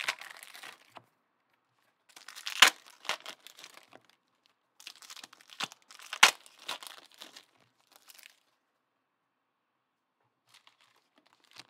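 Trading card pack wrappers being torn open and crinkled by hand, in three bursts of rustling, the second and third each with a sharp rip. The last few seconds are near quiet apart from faint paper handling.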